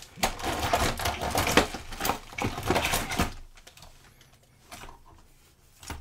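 Rapid clattering and clicking of small metal tools being rummaged through, dying away after about three seconds, followed by two single clicks.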